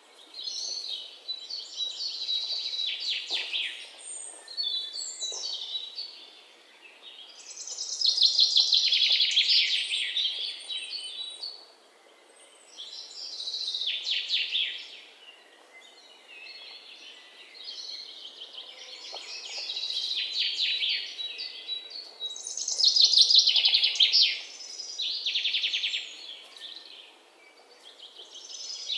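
Songbirds singing: bursts of fast, high chirps and trills a few seconds long, following one another with short pauses, over a faint steady hiss.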